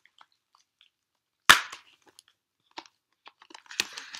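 Plastic Blu-ray case being opened: one sharp, loud snap about a second and a half in as the latch pops, then light plastic clicks and rustling as the case is handled near the end.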